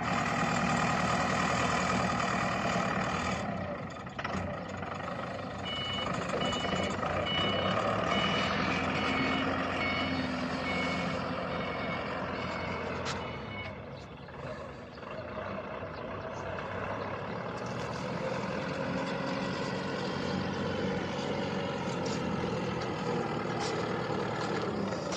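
Engine of a forklift-type precast concrete slab lifting machine running steadily. A reversing alarm beeps repeatedly, a little more than one beep a second, for about eight seconds starting about six seconds in.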